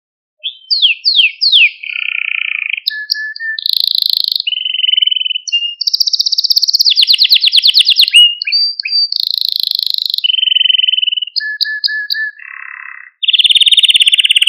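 Domestic canary singing, starting about half a second in. It runs a varied chain of quick high phrases: a few fast downward sweeps, then trills and a rapid even roll in the middle.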